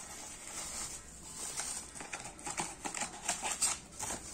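Plastic bubble wrap crinkling and crackling as hands handle it, with paper rustling as leaflets are lifted out; irregular crackles that grow busier towards the end.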